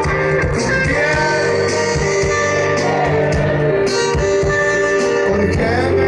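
Live rock band playing over a stage PA, heard from the crowd: drums, electric guitar and bass, with a singer's voice.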